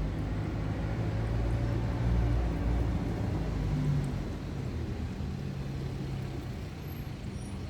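A low, steady rumbling hum, like a motor or passing traffic, louder for the first four seconds and then easing off.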